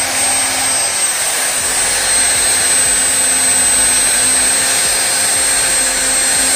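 Wood router's brushed universal motor, fitted with a new armature and carbon brushes, running steadily at speed with a high whine on a bench test run. The brushes run without sparking, a sign that the repair has cured the armature sparking fault.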